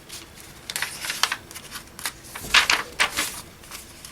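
Paper pages of a handmade junk journal being opened and turned, rustling in several short bursts, the loudest about two and a half seconds in.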